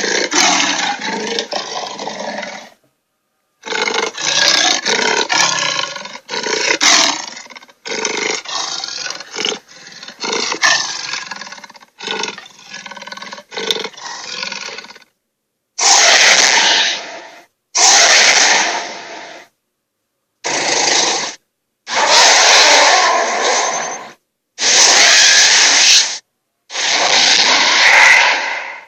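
Dragon roar sound effects played one after another: a run of roars and growls in the first half, then about six separate roars of a second or two each with short silences between.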